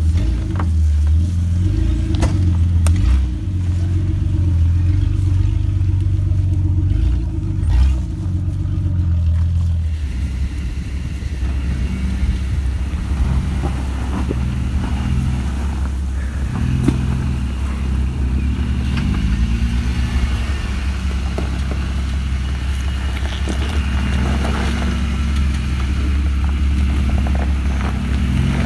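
Jeep engines running over a deep low rumble as the vehicles crawl over trail rocks, the engine pitch rising and falling again and again with the throttle.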